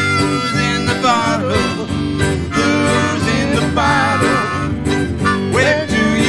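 Harmonica playing a solo with bent, sliding notes over strummed acoustic guitar and mandolin backing in an old-time string-band tune.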